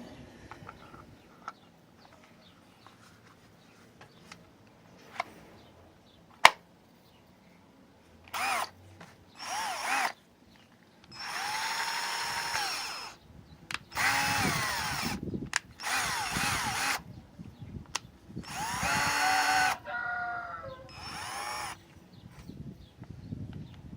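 Total TDLI20021 20 V cordless drill-driver run in a series of short trigger bursts, its motor whining up to speed and winding down each time, some bursts at a lower speed. A few sharp clicks come before the first run.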